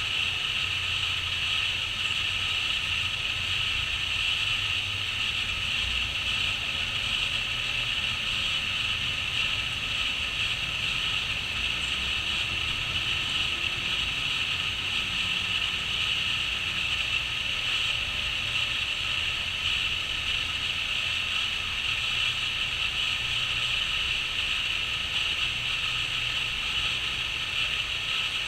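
Crickets trilling in a steady, unbroken chorus, with a low rumble underneath.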